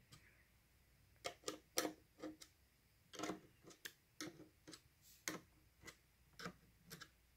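Faint, irregular clicks of a small screwdriver working the screws out of a Dell Inspiron 15 5547 laptop's metal keyboard plate, with the tip tapping on the screw heads and the plate.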